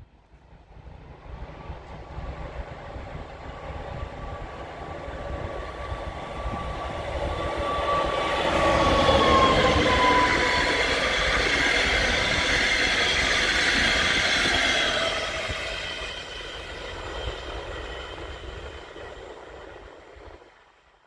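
DB Class 245 diesel-electric locomotive hauling a double-deck regional train past. It grows steadily louder to a peak about halfway through, then fades as it draws away. A steady whine runs through the pass and drops slightly in pitch as the locomotive goes by, over the noise of engine and wheels.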